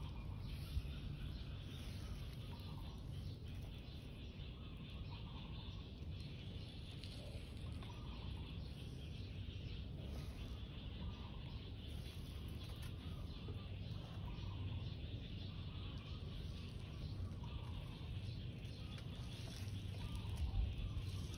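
Outdoor ambience: faint short bird calls repeating every second or two over a steady low rumble.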